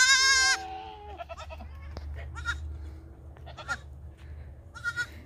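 Newborn goat kid bleating: a loud, high, quavering bleat at the start, then a lower call right after it, then a few fainter short bleats spread through the rest.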